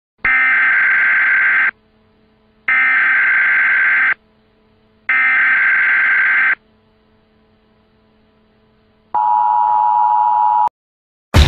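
Electronic beep tones: three identical long high beeps about a second apart, then a lower long tone. A sudden loud boom hits at the very end.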